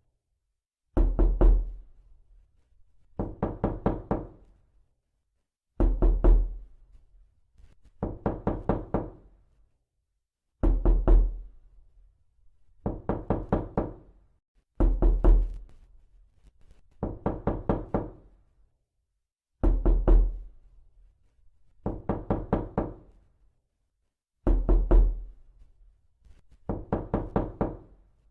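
Rapid knocking on a door, in short bursts of four to six quick raps. A burst comes every two seconds or so, with silent gaps between, repeated about a dozen times.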